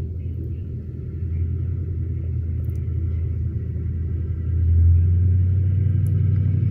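A motor vehicle's engine and exhaust making a steady low rumble that grows louder about four and a half seconds in.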